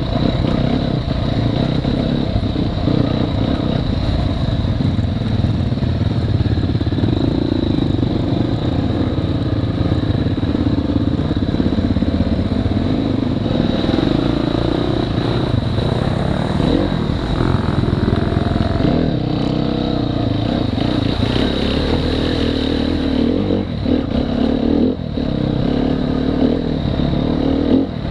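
Off-road dirt bike engine running under changing throttle as the bike rides over a rocky trail, heard from the rider's body-mounted camera. The throttle is briefly shut a couple of times near the end.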